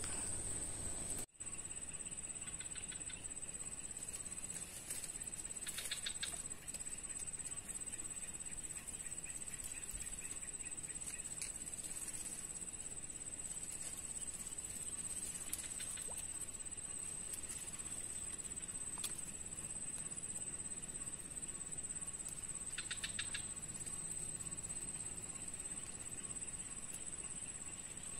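Steady high-pitched drone of insects, with a few short pulsing trills at intervals of several seconds.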